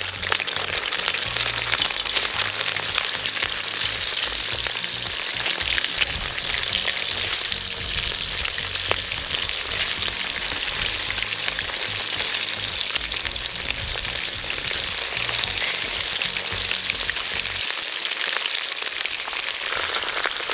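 Pork ribs frying in hot vegetable oil in an Uzbek kazan, a steady dense sizzle and crackle of spattering fat. More rib pieces are laid into the oil as it goes.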